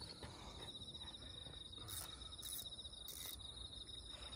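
An insect trilling steadily: a faint, high, fast-pulsing trill, with a few soft ticks around the middle.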